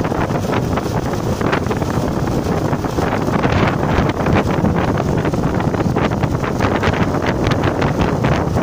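Heavy wind buffeting on the microphone of a moving motorcycle, a steady loud rush with gusty flares.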